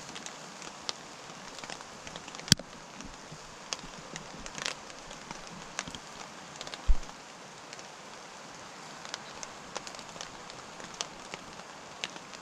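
Wood fire crackling in a small camp stove: a steady hiss with scattered sharp pops, one loud pop about two and a half seconds in. A dull thump comes near seven seconds.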